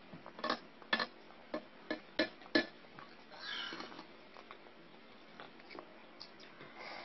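Close-up eating noises: a run of sharp clicks and smacks over the first three seconds, then a short breathy slurp-like noise about three and a half seconds in.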